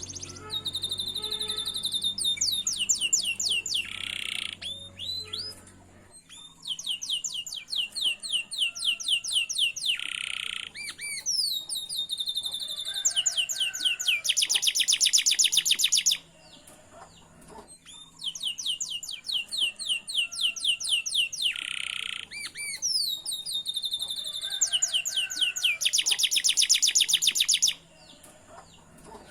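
Domestic canary singing: long phrases of fast, high trills and rolling notes, broken by short pauses about three times.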